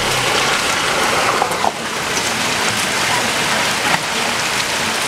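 Steady rain falling, with the low engine sound of a 4x4 jeep fading away at the start as it drives off down a wet dirt track.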